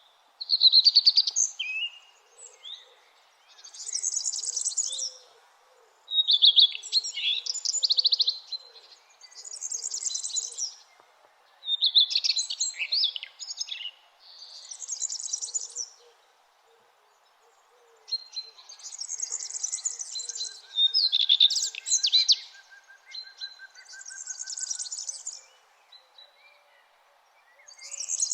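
Songbirds singing at sunrise, one short phrase every two to three seconds. High, hazy trills alternate with lower phrases of rapid chattering notes, over a faint steady background hiss.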